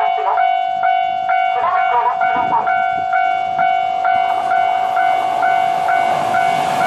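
Japanese level-crossing alarm: an electronic bell striking about twice a second over a steady tone, with the crossing's recorded voice announcement about two seconds in. Near the end the rushing noise of an E3-series Yamagata Shinkansen train passing the crossing starts to swell.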